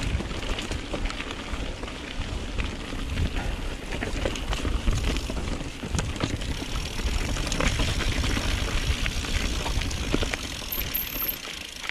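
Mountain bike riding over a rough trail: the tyres crunch over the ground and the bike rattles, with many short clicks and knocks over a steady low rumble.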